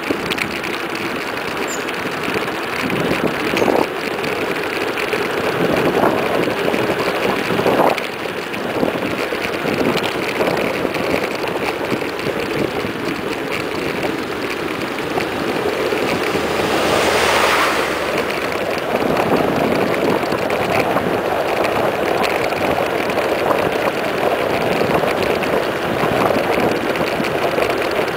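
Wind buffeting the microphone and tyre noise of a mountain bike coasting fast down a paved road. About two-thirds of the way through comes a brief louder rush as an oncoming truck passes.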